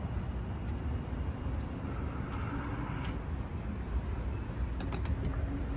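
Steady low outdoor rumble, with a quick cluster of clicks about five seconds in from a glass shop door's handle and latch as the door is opened.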